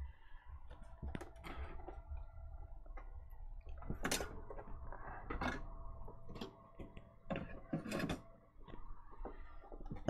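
Scattered light clicks and taps of a braided cable and its plug being handled over a game console's plastic lid, the sharpest few about four, five and a half, seven and a half and eight seconds in, over a faint steady hum.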